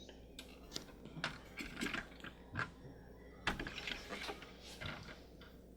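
Faint, scattered clicks and light taps from a die-cast model car being handled, about a dozen small knocks spread irregularly.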